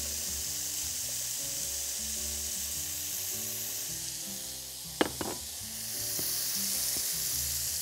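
Steady sizzling as meat broth meets sautéed rice in a hot steel pot and is stirred in with a silicone spatula. A single short knock comes about five seconds in.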